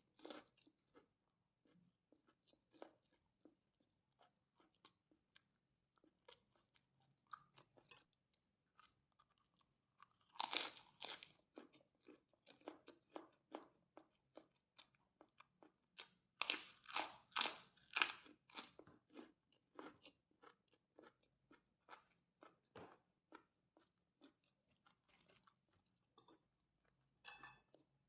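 A person chewing a mouthful of fried rice topped with crunchy kerupuk crackers: a long run of faint, quick crunches. There are louder bouts of crunching about ten seconds in and again from about sixteen to nineteen seconds.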